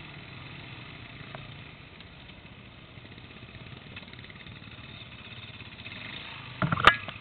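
Dirt bike engine running steadily at low revs on a slow trail ride, with one sharp, loud knock near the end.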